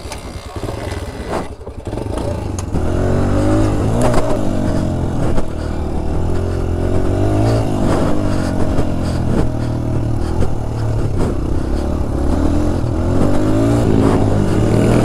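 Dirt bike engine pulling away and riding a motocross track, its pitch repeatedly rising and falling with the throttle. It is quieter for the first couple of seconds and gets louder about three seconds in.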